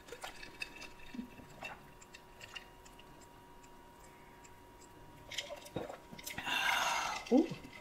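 Quiet sipping and swallowing of iced tea through a plastic straw from a glass jar, with faint small clicks. A louder breathy sound comes near the end.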